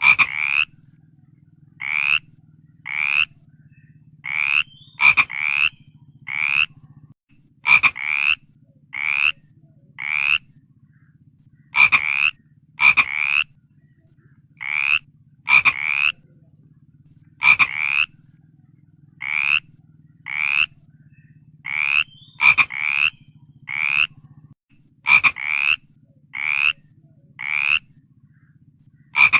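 A frog croaking over and over: short calls roughly once a second, some in quick pairs, several starting with a sharp click. A low steady hum runs underneath.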